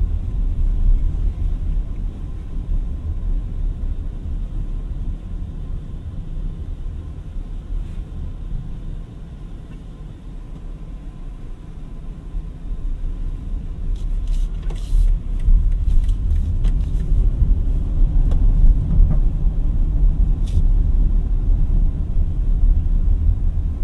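Low road and tyre rumble inside the cabin of a BMW iX3, an electric crossover with no engine note, while driving. The rumble eases off about nine seconds in and grows louder again from about fourteen seconds on.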